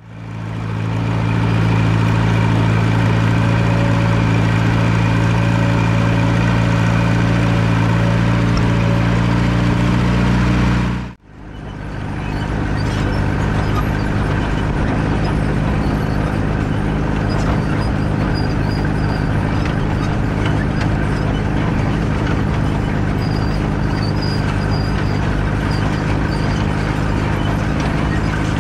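Allis-Chalmers WD45 tractor engine running steadily under load while pulling a McCormick No. 10 grain drill, with the drill rattling along behind. The sound cuts out for a moment about eleven seconds in, then picks up again the same.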